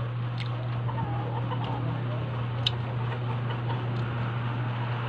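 Steady low hum with scattered small clicks and taps, the clearest about two and a half seconds in, typical of eating with utensils.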